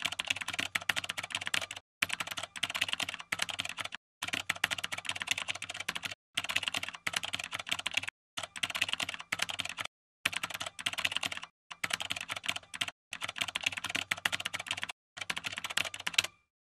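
Rapid computer-keyboard typing clicks in about nine runs of one to two seconds, each broken off by a brief pause: a typing sound effect for text being typed out line by line.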